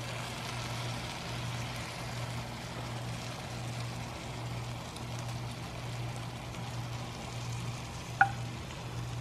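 Freshly baked baklava sizzling as cooled honey syrup is spooned over the hot phyllo, a steady soft hiss over a constant low hum. One short clink comes near the end.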